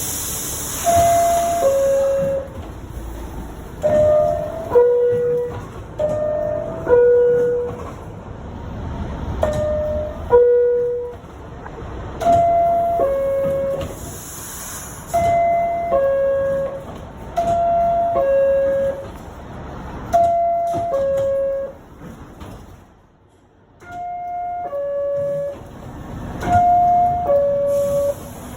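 New York City Subway R62A door chimes, the two-note falling ding-dong that signals the doors are about to close, sounding about ten times in turn. Some pairs are pitched higher than others, with train noise between them.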